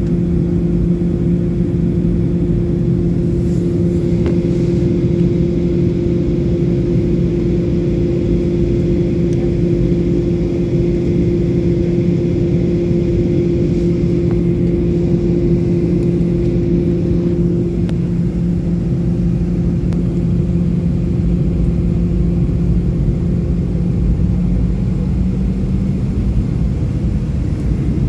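Jet airliner cabin noise during descent: the turbofan engines' steady drone and rumble, with two steady low hums. The higher hum fades out a little past the middle, and the lower one shifts slightly near the end, as the engine setting changes.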